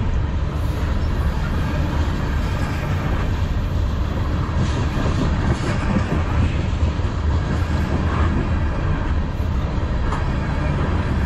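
Freight cars rolling past close to the track: a steady loud rumble of steel wheels on rail, with a few sharper clicks.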